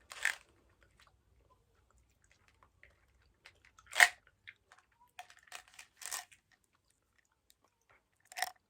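People chewing jelly beans, with a few short, crisp mouth and bite noises; the sharpest comes about four seconds in.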